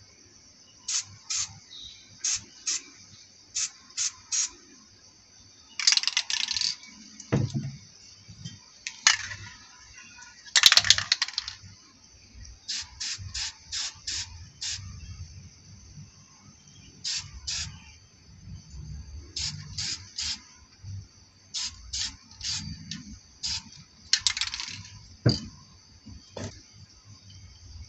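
Aerosol spray-paint can sprayed in short quick puffs, mostly in groups of three or four, with a few longer sprays of about a second. A couple of dull knocks come in between.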